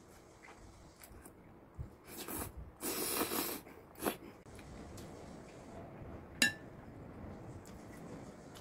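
Metal fork and spoon clinking against a ceramic bowl as noodles are lifted and eaten, with a short burst of noodle slurping about three seconds in. One sharp, ringing clink comes a little past the middle.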